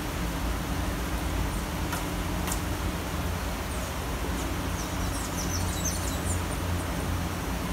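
Steady city rain, an even hiss over a low traffic rumble. Two sharp ticks come about two seconds in, and faint high chirps come about five to six seconds in.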